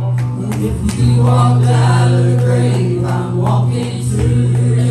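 Live church worship band playing: a strong held bass note under sharp drum and cymbal hits, with some singing through the middle.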